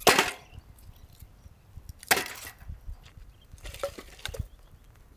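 Pieces of dry firewood clattering and knocking together as they are pulled off a bicycle's carrier rack and piled up: a loud clatter at the start, another about two seconds in, and a run of sharper knocks around four seconds in.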